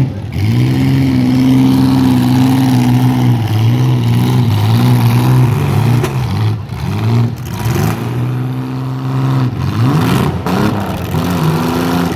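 Demolition derby cars' engines revving hard, several at once, their pitch repeatedly rising and falling as the cars push and ram.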